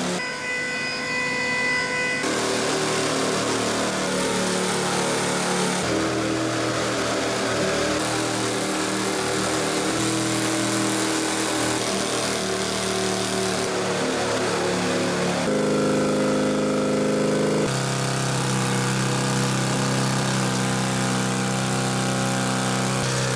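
Compact tracked drilling rig running steadily as it bores into the floor, its engine and hydraulics droning. The pitch of the drone jumps to a new level several times.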